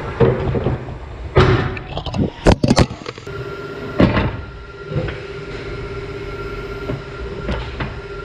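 Clatter from a tyre-changing machine and an alloy wheel being handled: several loud knocks and clanks in the first half, then a steady hum.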